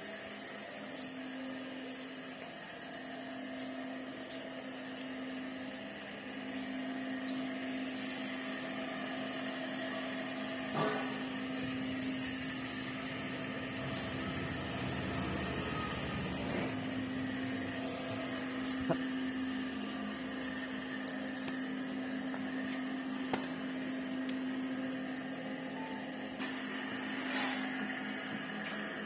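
A steady machine hum, like a running electric motor, with a few sharp clicks.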